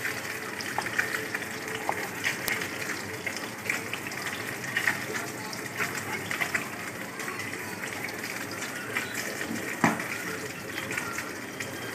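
Chef's knife cutting a tomato on a wooden cutting board, with scattered light clicks and one firmer knock of the blade on the board near the end, over a steady background hiss.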